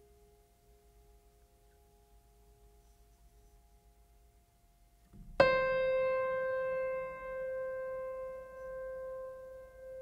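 Background music: a faint held tone, then about five seconds in a single loud piano note is struck and rings on, slowly fading.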